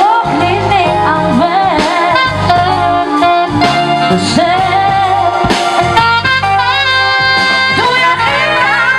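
Live band playing a pop song, a gliding lead melody line over steady bass and keyboard chords.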